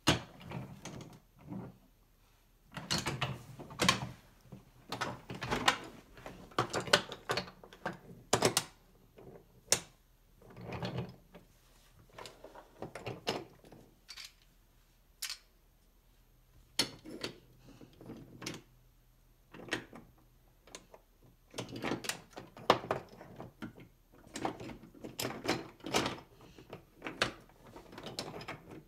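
Wooden toy train cars and wooden track pieces clacking and rattling as they are handled and pushed along the track: irregular runs of knocks and clicks with short pauses.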